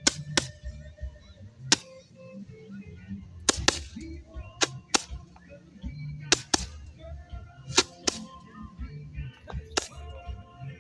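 Fireworks going off: about a dozen sharp pops, mostly in pairs a fraction of a second apart, every second or two.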